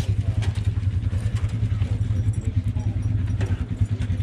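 ATV engine idling steadily, with a dog whining faintly a few times.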